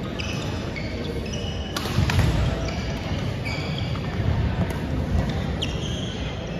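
Badminton rally: sharp cracks of rackets striking the shuttlecock, three times, with sneakers squeaking and footsteps thudding on the wooden gym floor. The hall echoes.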